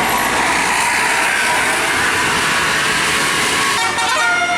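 A large vehicle, most likely a bus, runs past with a loud, even rush of engine and road noise. Near the end, a Basuri telolet horn starts playing its quick multi-tone melody, the pitch stepping up and down.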